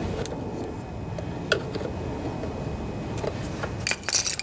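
A few scattered light clicks and scrapes of a screwdriver working at the plastic primer bulb housing of a Briggs & Stratton lawnmower engine, over a steady low background noise.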